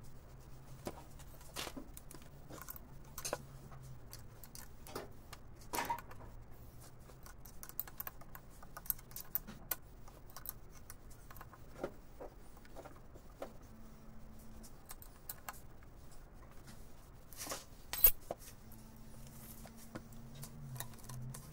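Small metal clicks and taps of carburetor parts being handled and taken apart by hand, irregular and scattered, with one sharper knock near the end. A faint low hum runs underneath.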